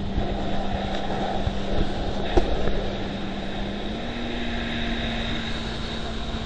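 Motorboat engine running at speed with wind and water rush. Its steady tone steps up slightly in pitch about four seconds in, and there is a single short knock about halfway through.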